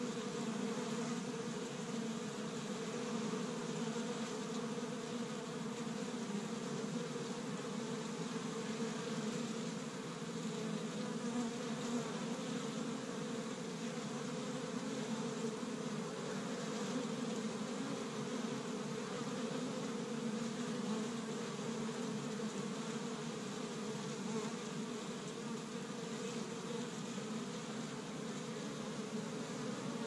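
Many honey bees buzzing in a steady, overlapping hum as they fly in and out of the hive entrance of a busy colony.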